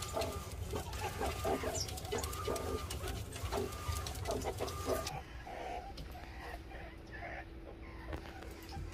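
A group of meerkats making many short clucking and chirping calls, with scratching and rustling in sawdust bedding. About five seconds in the sound changes abruptly to fewer, softer calls over a steady low hum.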